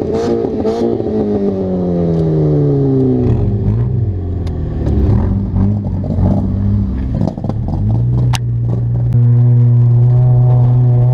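Car engine running hard on a dirt track: the revs fall away over the first few seconds, waver, then climb again about eight seconds in and hold steady and high, with scattered clattering knocks.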